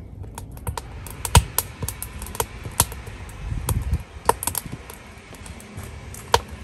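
Wood fire in the firebox of a small metal raku kiln crackling, with irregular sharp pops and cracks over a low rumble of the burning.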